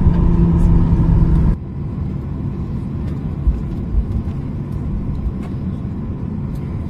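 Steady low rumble inside the cabin of a Boeing 737-800 standing at the gate, with a few faint clicks. A louder passage with a steady droning hum cuts off abruptly about one and a half seconds in.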